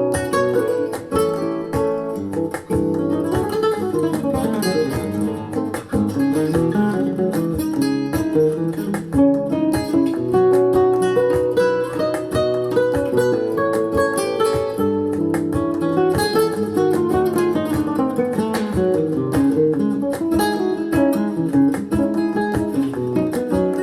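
Acoustic guitar music, plucked and strummed, played back through a Grundig Super HiFi Box 2500 loudspeaker.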